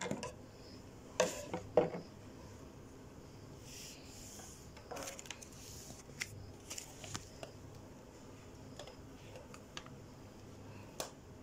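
Clear plastic blister packaging of a boxed action figure being handled, giving sharp plastic clicks and crackles, the loudest pair about a second and a half in, then scattered lighter clicks.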